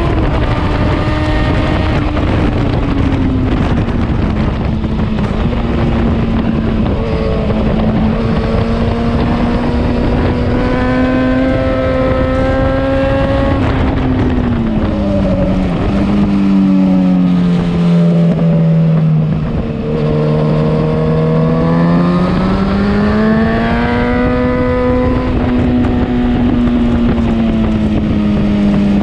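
Motorcycle engine heard onboard at track speed over a heavy rush of wind. The engine note holds fairly level, falls away for a few seconds past the middle as the bike slows, then climbs again under acceleration near the end.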